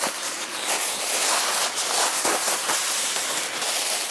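Dry fallen leaves pouring and tumbling out of a large woven plastic sack onto concrete, a dense crackling rustle along with the rustle of the sack as it is shaken out.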